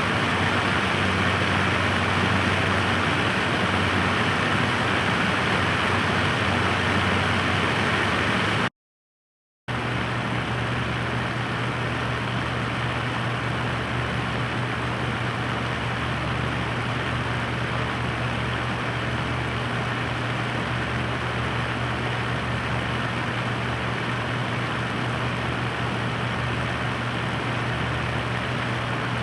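Electric floor fan running: a steady rush of air over a low motor hum. About nine seconds in it cuts off for about a second, then comes back slightly quieter with a steadier hum, at another speed setting.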